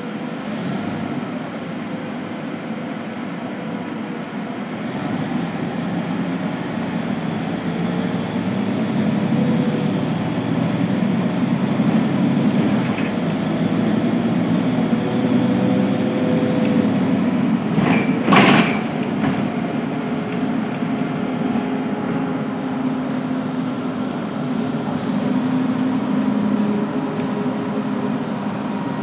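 Engine and road noise inside a moving city bus, growing louder a few seconds in as it picks up speed. About two-thirds of the way through, one brief sharp knock, the loudest thing heard.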